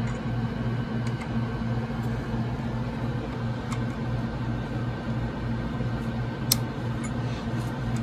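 Steady low electrical hum and fan whir from the test equipment, with a few small, sharp metal clicks as a torque wrench tightens a 1.85 mm coaxial connector. The sharpest click comes about six and a half seconds in.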